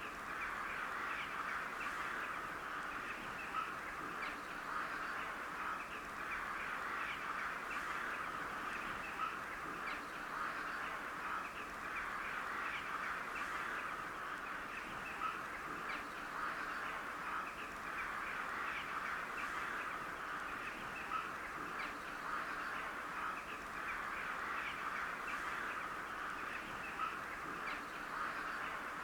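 A large flock of crows calling together: a dense, unbroken chatter of many overlapping short calls, with now and then a single louder call standing out.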